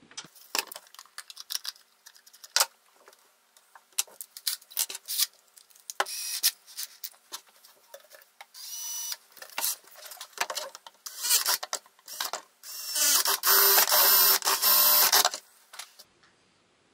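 Drill boring holes through a plastic bucket lid in several short bursts, the longest and loudest about two seconds long near the end. Clicks and knocks of the lid and tool being handled come in between.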